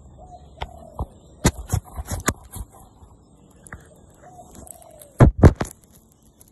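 Long-tailed macaque handling and biting a smartphone, heard through the phone's own microphone: scattered clicks and knocks of teeth and fingers on the phone, with a cluster of loud thumps about five seconds in. Two faint short calls that dip in pitch at their ends come once near the start and again about four seconds in.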